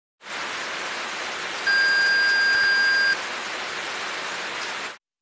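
Television static hiss with a steady high-pitched test-tone beep over it from about a second and a half in to about three seconds, louder while the beep sounds; the hiss cuts off abruptly just before the end. A TV colour-bars test-pattern sound effect.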